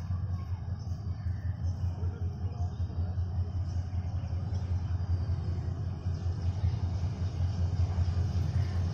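Low steady rumble of a Canadian-built metre-gauge diesel locomotive's engine as it approaches hauling a tanker train, growing a little louder over the last few seconds.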